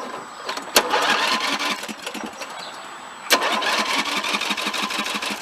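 Electric starter cranking a Snapper riding mower's engine over without it firing, in two runs, each beginning with a sharp click. The starter is stuck engaged and wouldn't stop.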